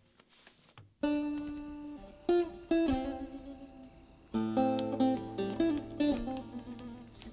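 Background music of plucked and strummed acoustic guitar, coming in about a second in, with a low sustained note joining partway through.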